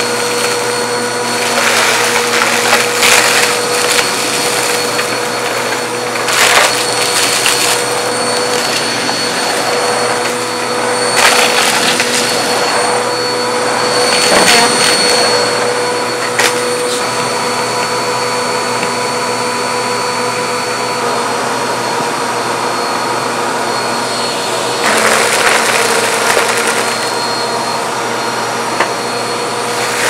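Bissell CleanView Compact Turbo upright vacuum cleaner running steadily, a constant motor whine over the rush of suction. It gets briefly louder and rougher a few times, around the 11-second mark and again near the end.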